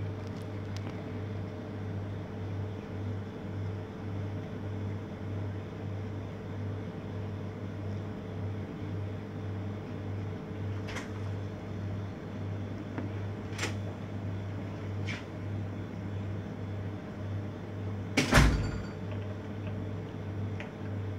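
Steady low hum of kitchen machinery, pulsing evenly, with a few light clicks from about halfway and one loud knock near the end.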